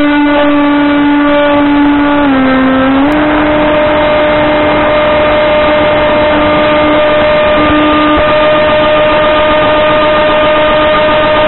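Brushless 2208 2600 kV electric motor spinning a 6x4 propeller on an AR Wing flying wing, heard from its onboard camera in flight: a steady buzzing whine. Its pitch drops briefly about two seconds in, then settles slightly higher and holds steady over a rushing noise.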